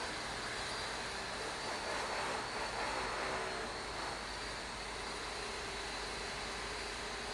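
Steady distant vehicle noise, an even rumbling wash with a faint held tone that comes in about halfway through.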